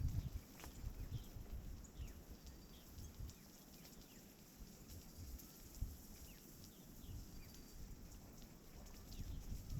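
Small birds chirping faintly now and then in short, falling calls, over a low rumbling noise on the microphone.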